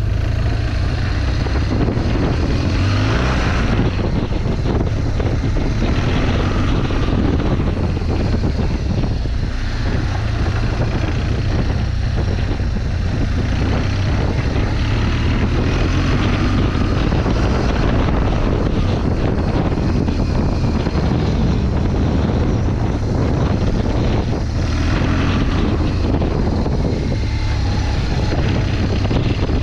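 BMW R 1200 GS boxer-twin engine running steadily as the motorcycle climbs a dirt track, a continuous drone.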